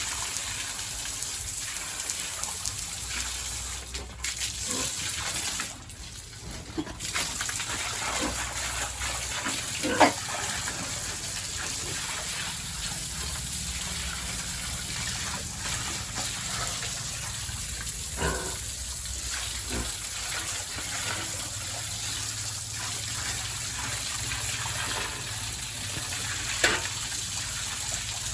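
Water gushing steadily from a hose, briefly dropping off about six seconds in, with a few short sharp sounds over it.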